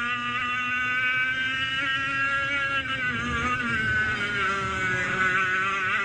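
100cc two-stroke kart engine running at high revs with a buzzing note; the revs drop about halfway through, then climb again near the end.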